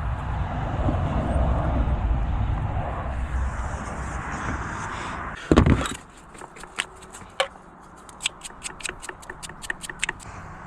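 Car sounds: a low rumble for about five seconds, then one loud knock, followed by a run of light, irregular clicks during key programming.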